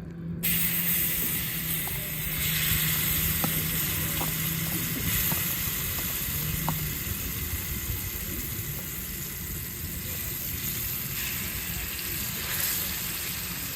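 Food sizzling in oil in a pan over an open fire, a steady hiss with a few scattered pops in the first half.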